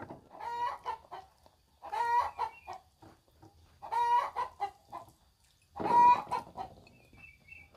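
A chicken calling repeatedly: four short calls about two seconds apart, the last the loudest.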